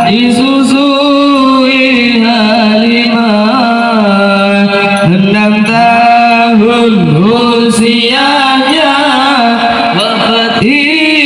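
A man's voice chanting a maulid recitation in praise of the Prophet through a microphone, in long notes that slide and waver in pitch.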